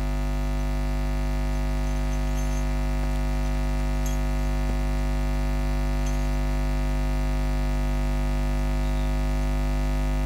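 Steady low electrical mains hum with a buzz above it, from the sound system's mixer feed, after the drums and voices have stopped.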